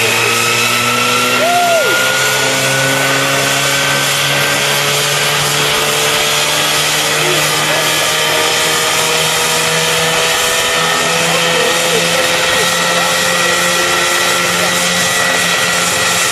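Homemade helicopter's small engine, said to come from a lawn mower, running steadily at high speed with its rotor spinning. The pitch climbs slowly as the engine is throttled up and the machine lifts just off the ground.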